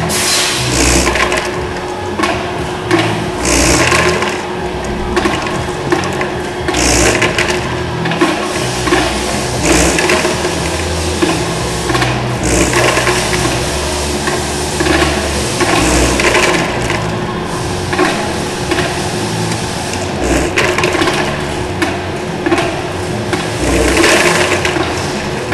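Elevator hopper of an automated parts feeder running: a steady motor hum under continuous rattling, with irregular thumps and clattering bursts as parts are lifted and dropped.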